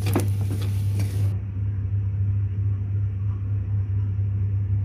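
A steady low hum. In the first second a few spatula strokes scrape the frying pan as fried rice is stirred.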